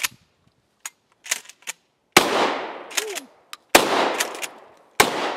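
Pump-action shotgun: a few sharp metallic clacks as the slide is racked to clear a stovepipe jam, then three shots about a second and a half apart. Each shot rings on with a long fading echo, and the pump clacks again between shots.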